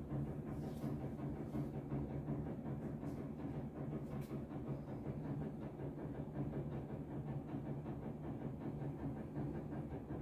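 A steady low mechanical rumble and hum, with a few faint knocks in the first half.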